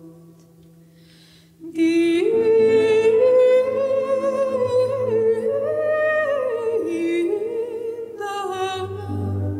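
A woman sings a slow, wordless melody into a microphone, starting about two seconds in, her long held notes gliding up and down with vibrato. A low sustained instrumental note sounds beneath her.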